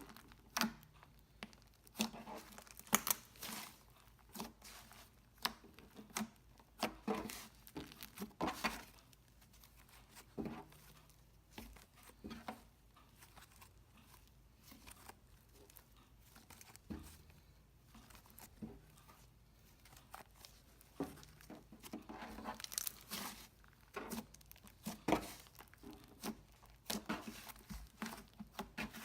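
Hands playing with butter slime, stretching, poking and squishing it: irregular sticky clicks and crackles, in clusters.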